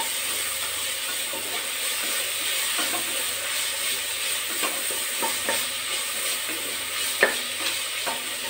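Sliced onions and ginger-garlic paste sizzling in hot oil in an aluminium pressure cooker, stirred with a wooden spatula that scrapes and knocks against the pot now and then. The sharpest knock comes about seven seconds in.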